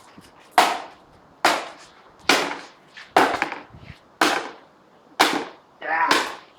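Repeated hard blows striking a broken electric fan, about seven sharp cracking impacts a little under a second apart.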